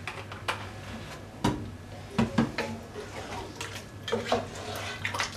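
Wooden spatula stirring thick duck curry in a non-stick pot, knocking against the pot several times in short sharp clacks.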